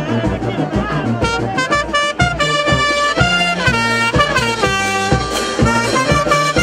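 Brass band music: horns play a sustained melody over a steady bass beat.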